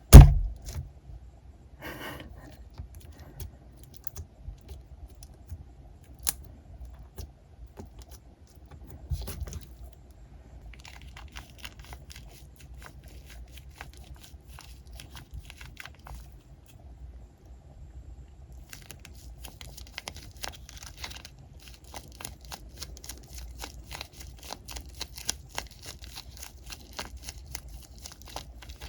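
Squishy toys squeezed and pulled by hand, giving fine sticky crackling and crinkling in runs. A sharp knock opens it, the loudest sound in the stretch.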